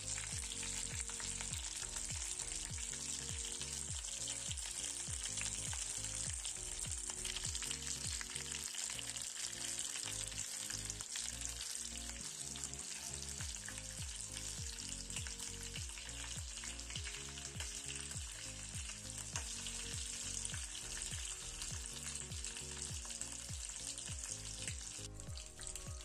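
Whole marinated chicken shallow-frying in a little hot oil: a steady, high sizzling hiss.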